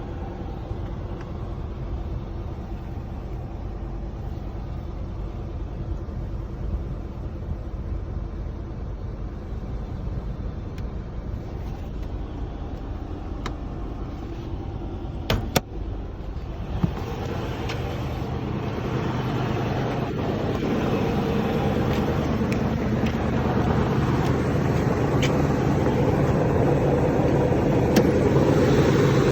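Toyota 4Runner running with a steady low rumble, the rumble/gurgle noise the owner is trying to diagnose. A sharp click about halfway through; after it the vehicle sound grows steadily louder and fuller, as when speeding up.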